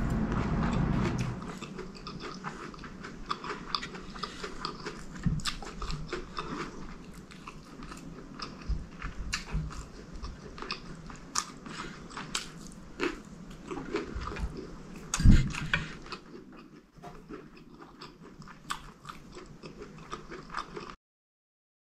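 Close-miked eating sounds: wet chewing and mouth clicks while eating chicken curry, rice and fried plantain, with a fork clicking and scraping on a plate. A heavier thump comes about fifteen seconds in, and the sound cuts off about a second before the end.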